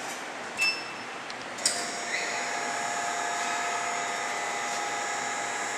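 High-frequency induction welding machine running with a steady hiss and whine of several steady pitches. A short blip comes a little over half a second in, and a sharp click about a second and a half in, after which the whine settles in steadily.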